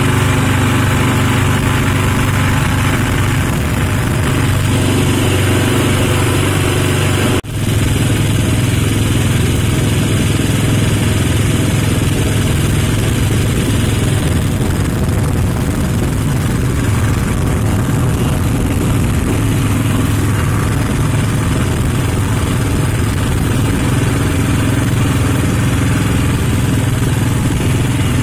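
Small engine of a katinting outrigger boat running steadily under way: a loud, even drone that drops out for an instant about seven seconds in.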